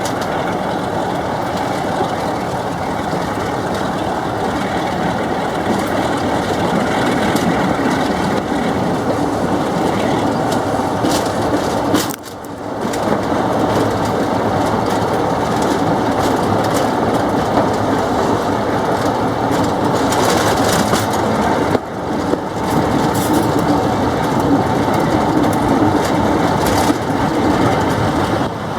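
A Class 47 diesel locomotive and its train rolling past under braking. Brakes and bogies squeal and grind over the steady rumble of wheels on rail.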